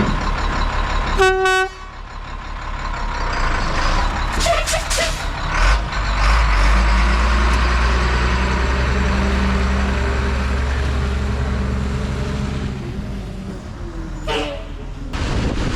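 Rollback truck's engine running under load, with a short horn toot about a second in; the engine builds up a few seconds in, holds steady, then eases off near the end.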